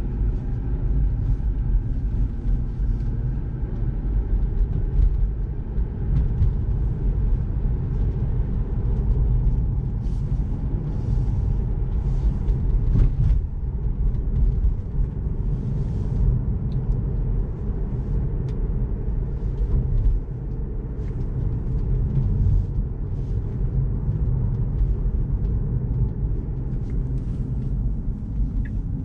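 Steady low road and tyre rumble inside the cabin of a moving Tesla Model 3, with a few faint ticks now and then.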